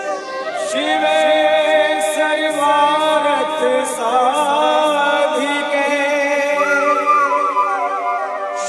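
Hindi devotional song to the goddess Kali: a wavering sung melody over sustained keyboard chords, with no bass beat. A falling sweep opens it.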